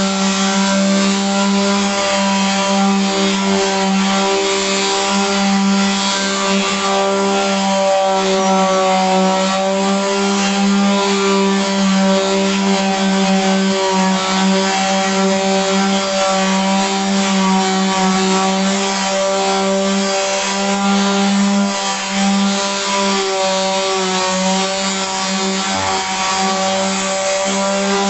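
Electric sander running steadily on wood, a constant motor hum under the hiss of sandpaper stripping off old varnish.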